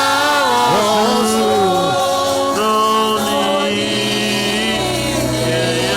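Congregation singing a slow hymn together in long held notes that slide from one pitch to the next.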